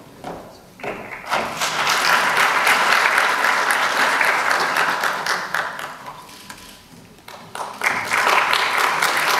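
Audience applauding: the clapping swells about a second in, dies away past the middle, and rises again near the end.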